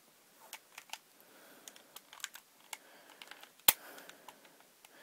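Light plastic clicks and rattles from handling a Crosman Stinger P311 spring-powered airsoft pistol, with one sharp snap about three and a half seconds in.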